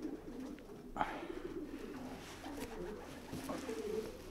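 Racing pigeons cooing in the loft, a faint continuous low warbling, with a short knock about a second in.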